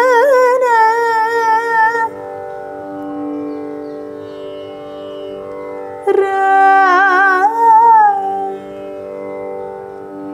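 A voice sings short alapana phrases in raga Natai, with oscillating gamakas, over a steady tanpura drone. One phrase ends about two seconds in, and another runs from about six to eight and a half seconds in; between them only the drone is heard.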